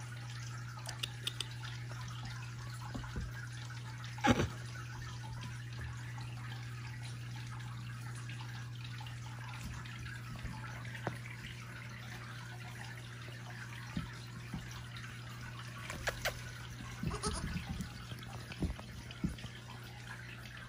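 Steady low hum with a faint hiss, and scattered light taps and knocks, the loudest about four seconds in and a busier run of them near the end.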